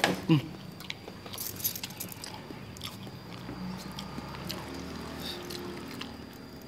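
Eating by hand: fingers picking apart grilled eel on a leaf plate and chewing, with scattered small clicks and crackles. A short vocal sound comes at the very start.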